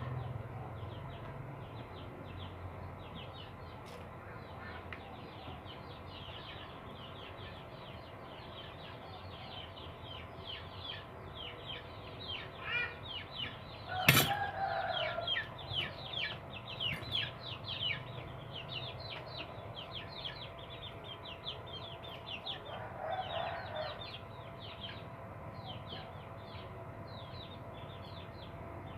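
Chickens and small birds calling: a steady rapid chatter of short, high, falling chirps, several a second, with louder clucking calls around the middle and again near the end. A single sharp click sounds about halfway through.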